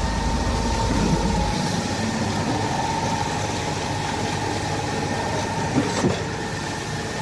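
Concrete mixer running: a steady mechanical drone with a thin whine held over it, and two short knocks about six seconds in.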